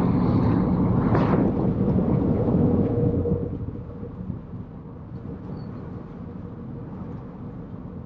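Taxi on the road: a steady low rumble of engine and road noise that fades about three and a half seconds in to a quieter steady background.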